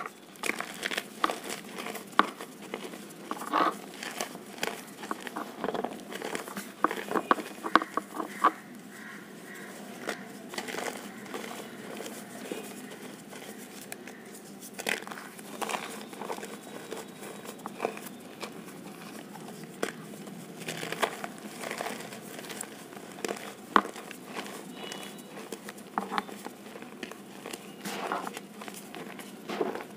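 Crunchy reformed chalk covered in cornstarch, squeezed and crushed by hand. It gives a run of dry crunches and crackles, dense at first and then in spells with quieter gaps.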